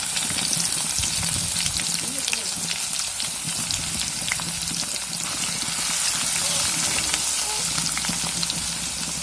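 Crushed garlic frying in hot coconut oil with fennel seeds and cinnamon: a steady dense sizzle with many small crackles and pops.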